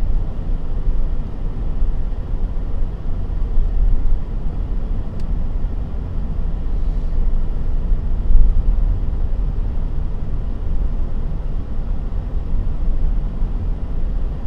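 Steady low rumble of a moving car heard from inside: tyre and road noise with engine drone.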